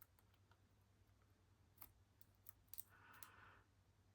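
Faint, sparse clicks of a lock pick working the pin tumblers of a Master Lock No. 3 padlock, a few sharp ticks bunched about two to three seconds in; the lock is stiff with old gunk.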